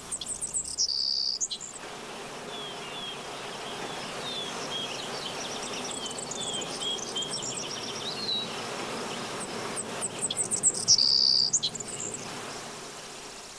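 Outdoor ambience of birds chirping and insects buzzing. Strings of small high chirps run over a steady hiss, with a louder burst of rapid high chirping and buzzing about a second in and again near the end.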